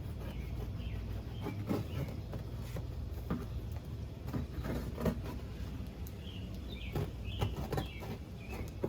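A cardboard box being opened by hand, with its duct tape being pulled off and the flaps handled: irregular rustles, scrapes and small knocks.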